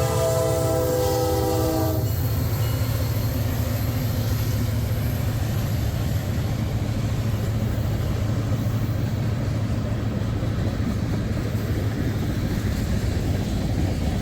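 A diesel locomotive's air horn sounds a chord that cuts off about two seconds in. A long freight train then rolls past with a steady rumble of wheels on the rails.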